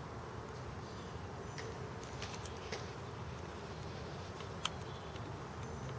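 A mass of honey bees buzzing steadily as a package of bees is installed into a Warre hive. A few sharp clicks sound over the buzz, the loudest about two-thirds of the way through.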